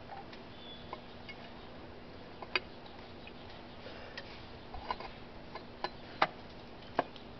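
Scattered light metallic clicks and taps, about half a dozen at irregular intervals, from small hand tools and parts being handled against a scooter's engine case. The sharpest click comes a little after six seconds in.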